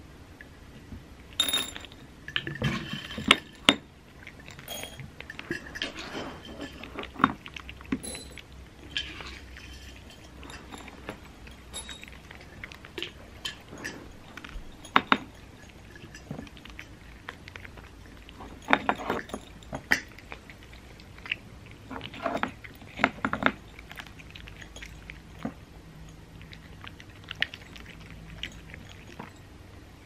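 Dry cat treats rattling out of a glass jar into small dishes near the start, then several cats crunching the dry treats, with scattered clicks and clinks from the dishes.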